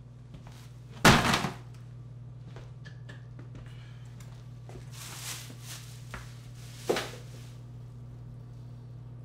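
Household thuds at a kitchen counter: a loud thunk about a second in and a lighter knock near seven seconds, as things are set down, with some rustling in between. A steady low hum runs underneath.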